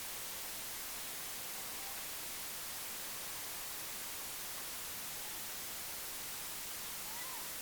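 Steady hiss with no clear event, and a faint short chirp near the end.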